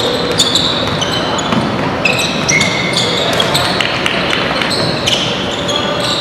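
Basketball game sound on a gym court: many short, high-pitched sneaker squeaks and the thuds of a ball bouncing, over steady background noise of the hall.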